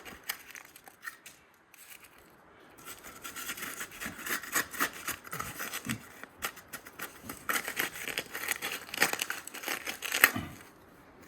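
Irregular scratchy scraping and crinkling of hand work on fresh concrete, as concrete is cleared off the shower drain's breakaway box before it cures. It is faint for the first couple of seconds, then busier until near the end.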